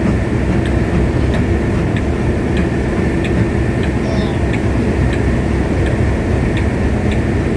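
Railway train running, a steady rumble with a sharp click about every two-thirds of a second.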